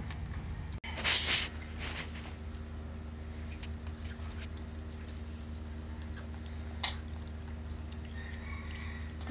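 Faint wet clicks and squishes of a baby sucking milk from a bottle, over a steady room hum. A brief loud rustling noise about a second in, a softer one just after, and a sharp click near the end.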